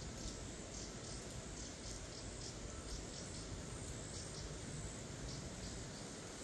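Insects chirping in short high pulses over a faint, steady low rumble of distant road traffic. The speaker puts the traffic, unusual in this spot, down to mass evacuation.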